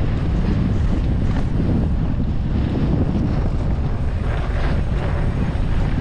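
Steady low rumble of wind buffeting the microphone of a camera riding along on a mountain bike, with a few faint rattles from the bike on the trail.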